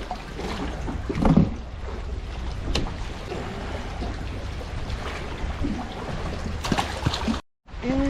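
Wind rumbling across the microphone outdoors, with a few light knocks and clicks. The sound cuts out completely for a moment near the end.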